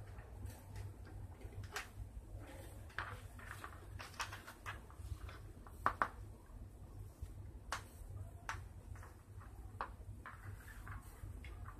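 Paper stencil cut-outs being handled and laid on a sheet of paper: scattered light rustles and taps, the loudest about six seconds in, over a steady low hum.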